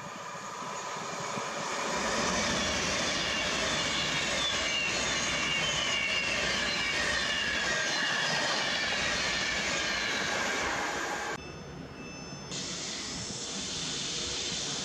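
Express passenger train approaching and running through at speed: a rushing roar of wheels on rail that builds over the first couple of seconds and then holds steady, with a whine that falls in pitch as it goes by. The sound cuts off abruptly near the end, giving way to a quieter background.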